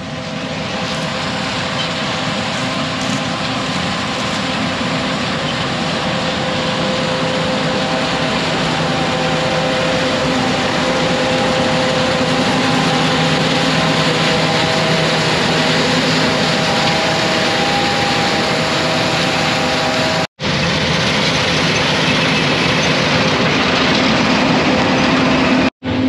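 A John Deere combine harvesting soybeans: the engine and threshing machinery give a steady, loud mechanical drone that grows louder over the first several seconds. The sound cuts out for an instant twice near the end.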